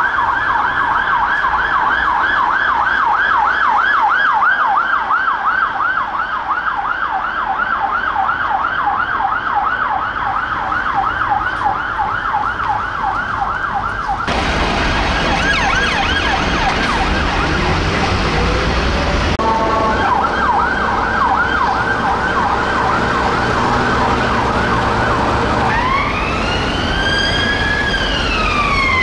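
UK police vehicle sirens on an emergency run. A Ford Transit police van's rapid yelp comes first, with its quick up-and-down sweeps. After cuts about halfway through, other police cars follow with yelp sirens and engine noise. Near the end the siren is a slower rising-and-falling wail.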